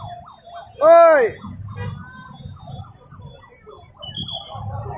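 A man's long, loud shouted "Oi!" about a second in, its pitch rising and falling, over a low rumble of street traffic and faint chatter.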